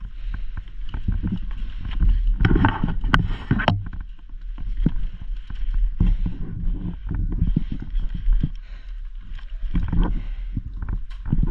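Irregular footfalls and knocks of gear, most likely from a player on the move, over a steady low wind rumble on a body-worn action-camera microphone, with a denser cluster of knocks about three seconds in.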